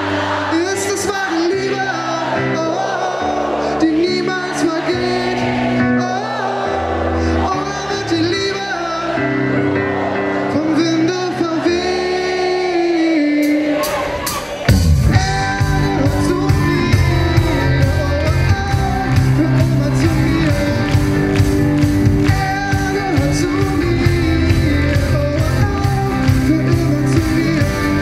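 Live band music in a large hall: singing over held keyboard chords, then about halfway through the full band comes in with drums, bass and electric guitar.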